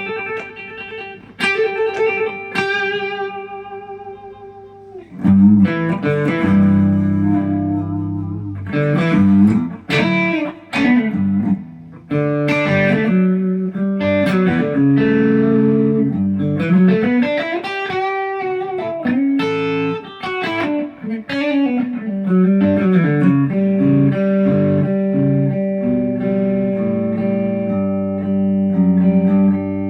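ESP LTD EC-256 electric guitar played through an amplifier: a few ringing notes that fade away, then from about five seconds in a louder, held lead line with notes bending and sliding up and down in pitch.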